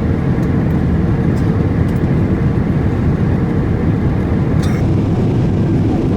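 Steady airliner cabin noise in flight aboard a Boeing 777-300ER: a loud, even roar of engines and airflow, heaviest in the low range, with a few faint small clicks.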